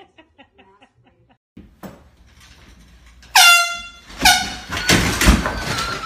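Handheld air horn blasted twice, about a second apart: first a long, piercing blast of under a second, then a shorter one, each opening with a slight downward bend in pitch. Loud, rough noise follows.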